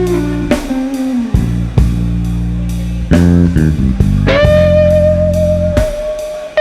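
Instrumental blues-jazz trio playing: guitar melody over bass guitar and drum kit, with a long held note starting about four seconds in.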